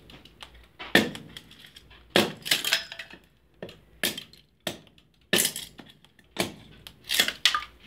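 A rusty, dull hatchet splitting kindling off a block of wood: about ten sharp cracking knocks, roughly one a second, some in quick pairs, as thin sticks split and peel off cleanly.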